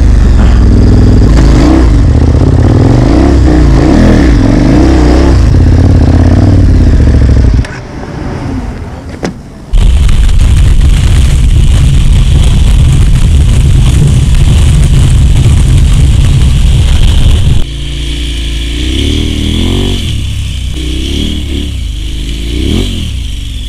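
Adventure motorcycle engine revving up and down as it is ridden, picked up on the rider's helmet camera. In the middle comes a long stretch of loud, steady wind rush on the microphone at road speed. The sound cuts abruptly several times between short riding clips.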